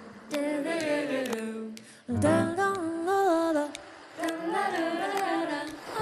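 Unaccompanied wordless singing: three short melodic phrases of held, stepping notes, with brief gaps between them.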